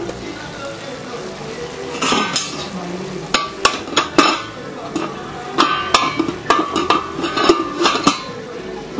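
Metal cooking utensils clinking and scraping against a pot or dish in an irregular run of sharp clinks that starts about two seconds in and stops shortly before the end.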